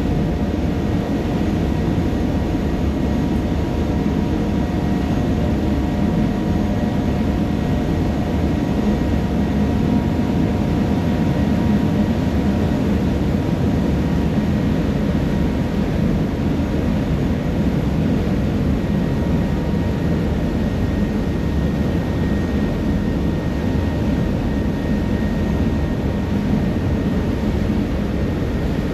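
Harbour ferry underway: a steady low engine drone with the rush of water and wind, and a faint constant hum running through it.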